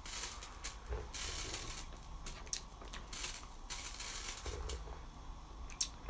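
Faint sipping of a café latte from a glass: short breathy slurps with a few soft clicks.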